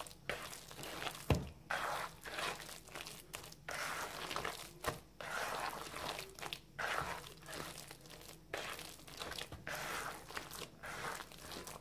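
A hand squeezing and kneading a wet batter of ground red lentils, chopped onion and egg in a bowl: irregular squelching, crunching strokes about once a second, with a single dull knock about a second in.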